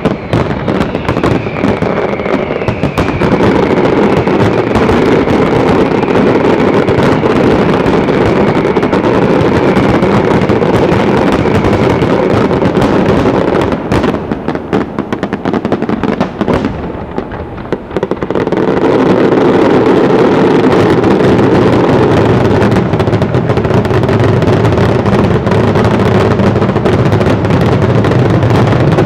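Aerial fireworks display firing a rapid, continuous barrage of shell bursts and crackle, with a faint falling whistle over the first dozen seconds. It eases briefly about fourteen seconds in, then comes back as a louder, denser barrage from about nineteen seconds in: the display's closing barrage.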